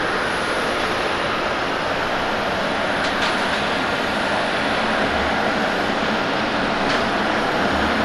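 Boeing 737-700's CFM56-7B jet engines giving a steady rushing noise as the airliner rolls out on the runway after landing, growing slightly louder.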